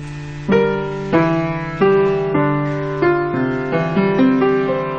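Calm instrumental music: piano notes struck one after another, roughly every half-second to second, each ringing out over a held chord.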